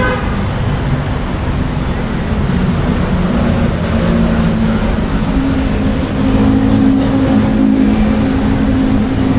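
Street traffic: motor vehicle engines running close by, with a steady low engine drone over road noise.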